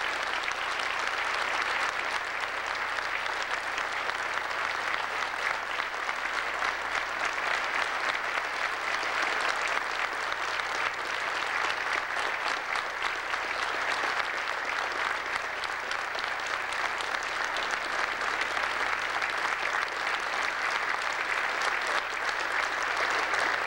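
Long, steady applause from a church congregation.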